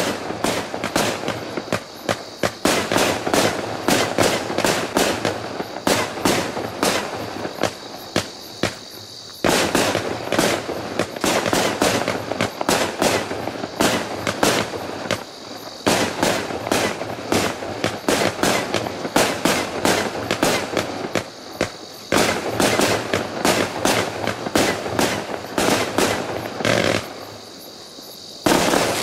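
A Piromax Q-max 60 firework cake firing its 60 shots of 20 mm: a rapid, continuous string of launches and bursts, with a few short lulls. It ends with a last loud shot near the end that fades away.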